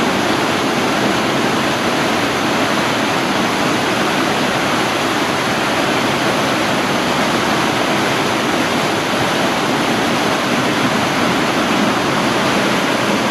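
Waterfall in a narrow rock gorge, its water rushing steadily and loudly down the cascade in high flow.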